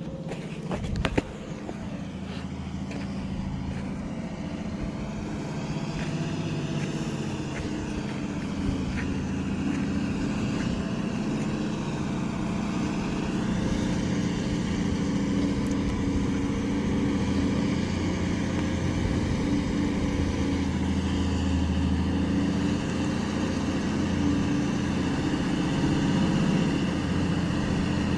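Heavy truck engine running steadily, slowly growing louder, with a click about a second in.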